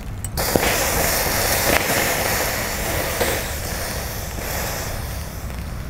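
Horned turban shells (sazae) grilling in the shell over charcoal, their juices boiling and sizzling in a steady loud hiss with a few sharp pops. The hiss starts abruptly just after the start.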